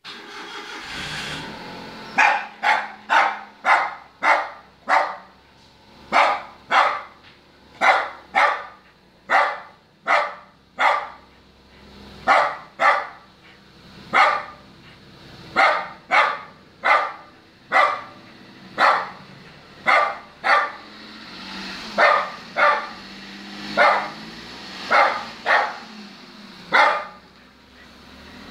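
Lhasa Apso barking sharply and repeatedly, about one to two barks a second, starting about two seconds in: demand barking to be let into the car.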